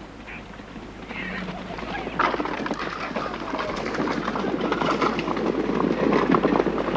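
Hoofbeats of a group of galloping horses, a dense patter that grows steadily louder as the riders approach.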